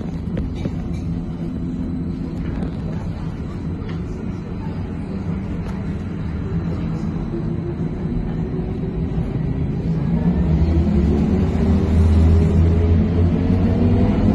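Trolza-5275.06 Optima trolleybus heard from inside the passenger cabin: a steady low rumble of rolling along the street, then from about halfway a whine that rises in pitch and grows louder as the trolleybus speeds up.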